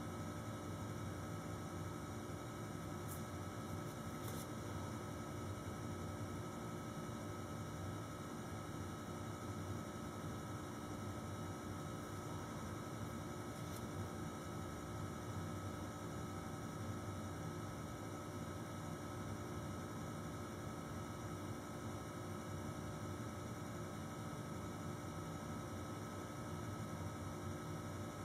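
Steady electrical hum with a faint even hiss, a few faint ticks.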